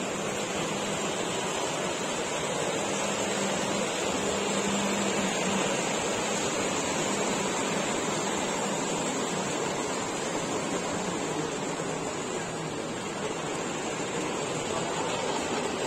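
Steady, even background hiss of an exhibition hall, with no distinct events standing out.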